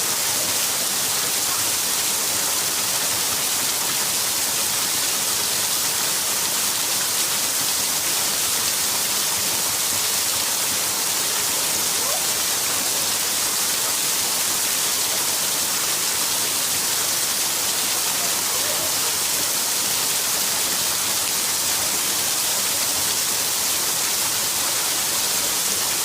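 Waterfall: a steady, even rush of falling and splashing water, bright and hissy with little deep rumble.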